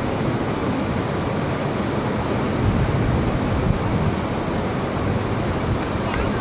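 Ocean surf rushing steadily, an even noise with no distinct events.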